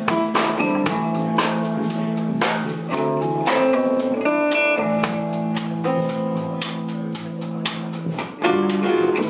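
Live instrumental band music: electric guitar, electric bass and drum kit playing together over a steady drum beat. The band gets louder about a second before the end.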